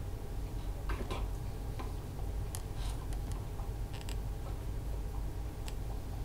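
Steady low hum of room tone with scattered faint clicks and taps at uneven spacing, a few close together around the second and third seconds.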